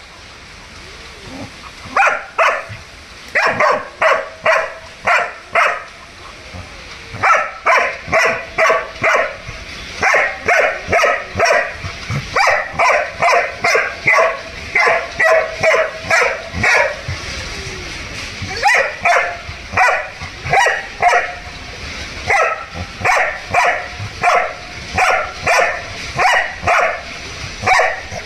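German Shepherd barking over and over at a kitten, about two to three barks a second in runs of several, with short pauses between the runs.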